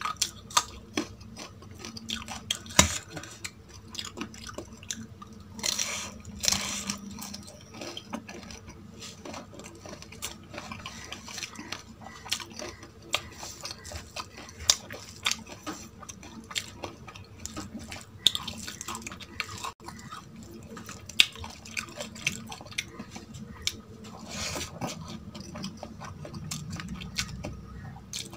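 Close-miked eating of a chicken curry and rice meal: chewing and wet mouth sounds with many sharp clicks and clinks of plate and utensils, and a few louder noisy bursts.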